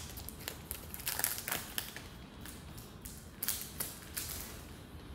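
Foil Pokémon TCG booster pack wrapper crinkling and crackling in the hands in short, irregular bursts as the pack is handled and opened.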